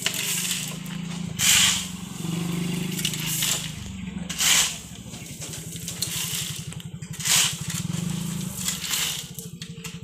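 A shovel scooping and tipping gravel, a gritty crunch about every three seconds, over the steady low hum of an engine running.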